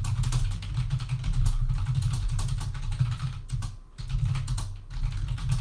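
Fast typing on a computer keyboard: a rapid, continuous run of key clicks with a brief pause about four seconds in.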